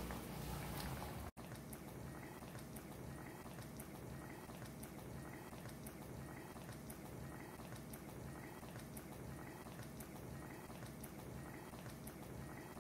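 Creamy cashew-and-yogurt gravy bubbling at a simmer in a steel kadai, a steady soft crackle of small bubbles popping. The sound cuts out for an instant about a second in.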